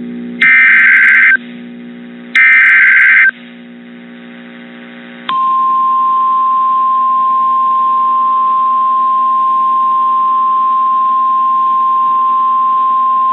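Emergency Alert System header data bursts: two loud, buzzy bursts about a second long, a second apart. After a short pause comes a single steady alert tone held for about nine seconds: the weather-radio warning alarm tone that introduces a severe thunderstorm warning.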